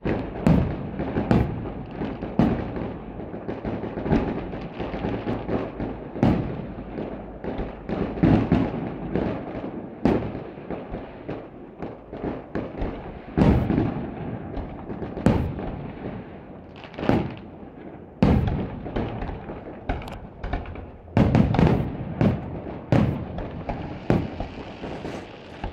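Aerial fireworks display: shell bursts going off as sharp bangs a second or two apart, with a quick cluster of several near the end, over a steady background rumble.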